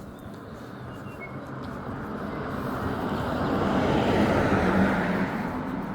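A road vehicle approaching and driving past, its tyre and engine noise swelling to a peak about four to five seconds in and then starting to fade.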